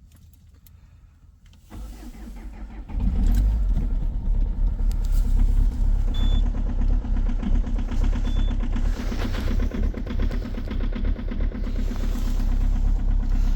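2.0 HDi diesel engine cold-started at −11 °C: the starter cranks for about a second, then the engine catches and runs with a loud, fast, very strong knocking.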